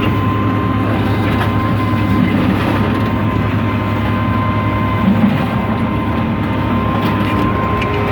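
Sierra logger baler's power unit running steadily: a loud continuous low drone with a thin, steady high whine over it.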